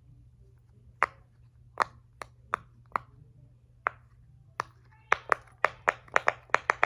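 Mini silicone pop-it fidget toy having its bubbles pressed, giving sharp little pops: spaced out at first, then a quick run of about ten pops in the last two seconds.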